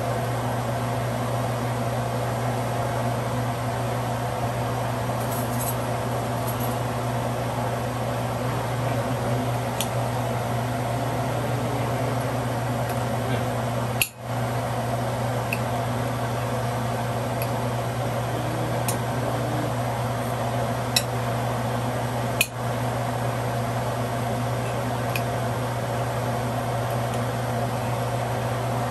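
A steady mechanical hum, like a kitchen fan or appliance running, with a few light ticks of a knife against a ceramic plate.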